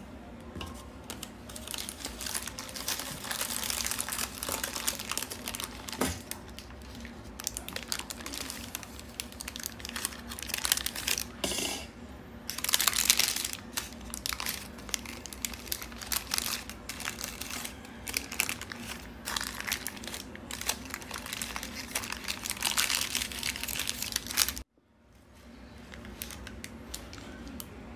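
Parchment baking paper crinkling and rustling in repeated bursts as it is peeled back from the sides of a baked cheesecake. The crinkling stops abruptly a few seconds before the end.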